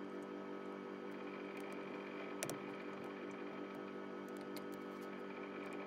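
Steady hum with several fixed tones, with a few faint small clicks of a little tool working the screws on a rifle scope's elevation turret, the clearest about two and a half seconds in.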